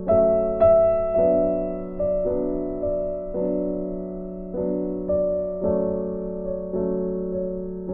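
Background music: slow, soft piano or electric piano, a chord struck about once a second and left to ring.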